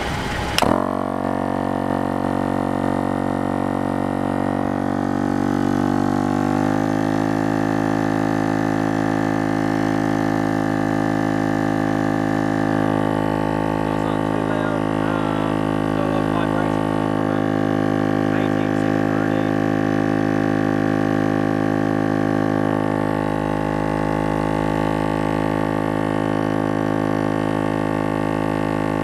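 Exitrax 160 L/min 12-volt single-cylinder air compressor running steadily with a loud humming drone as it pumps up a tyre from 25 PSI. Its tone shifts slightly about six seconds in and then holds steady.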